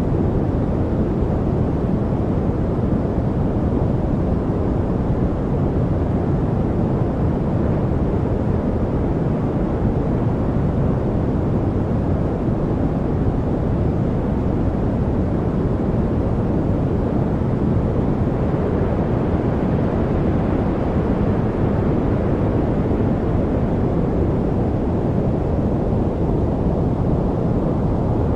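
Steady, unchanging noise track played for studying, deep and rumbling with little hiss.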